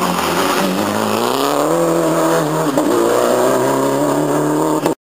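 Rally car engine revving hard as it accelerates away from a hairpin, its pitch climbing through the gears with a brief dip at a gear change about three seconds in. The sound cuts off abruptly near the end.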